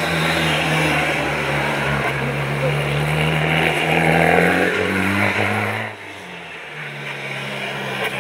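VW Golf Mk1 race car's 1.9 TDI turbodiesel engine running hard under load through the bends, its note rising and falling only slightly. About six seconds in the sound drops abruptly, then builds again.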